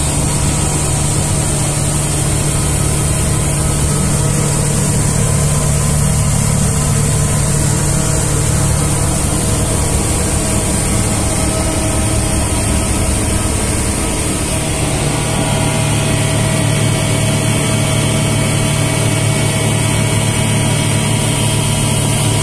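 Atlas Copco 75 kW permanent-magnet, inverter-driven rotary screw air compressor running loaded. It makes a steady loud hum with several constant tones over a high hiss.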